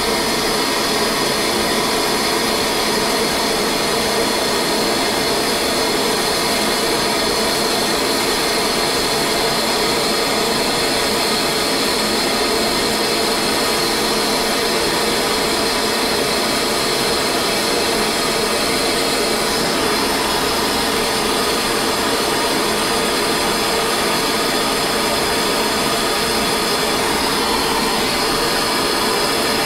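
Hand-held gas torch flame burning steadily, with an even, unbroken hiss, as it heats a steel bushing and ring up to silver-soldering temperature.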